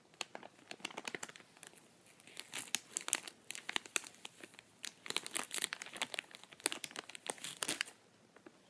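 Bag of gummy bear candy crinkling as it is handled close to the microphone, in a dense run of crackles that stops near the end.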